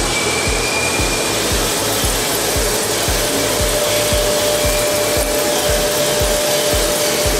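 FPT Ronin EVO boring mill drilling a 145 mm hole in 1.2311 tool steel with an insert drill, a steady harsh cutting noise. A steady whine joins it about three seconds in. Background music with a steady low beat plays underneath.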